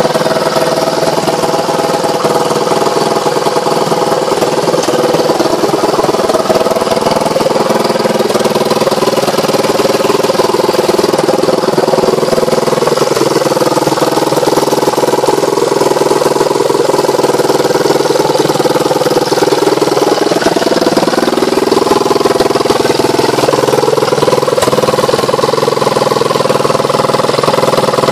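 1990 KTM LC4 600's single-cylinder four-stroke engine idling steadily on its first run after at least two years unused, with its silencer removed. Its speed wanders slightly a few times.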